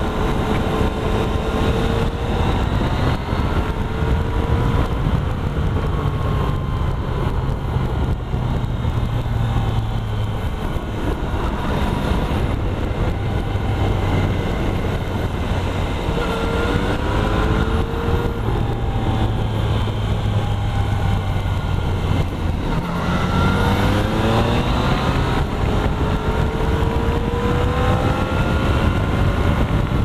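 Motorcycle engine heard from the rider's helmet camera under a steady rush of wind, its pitch rising several times as the bike accelerates, most clearly about halfway through and again a few seconds later.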